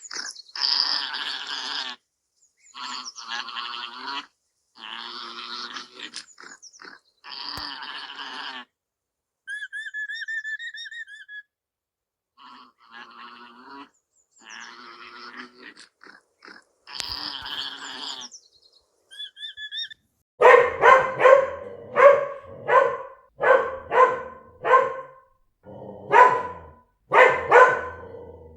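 Farm animal calls. First comes a series of harsh, noisy calls about a second long each, with a short wavering whistle around ten seconds in. From about twenty seconds in, quick sharp barks repeat about twice a second.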